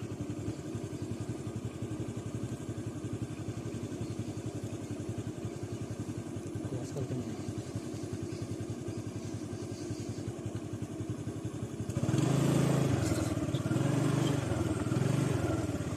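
A vehicle engine running steadily at idle. About twelve seconds in it gets louder, its pitch rising and falling a few times.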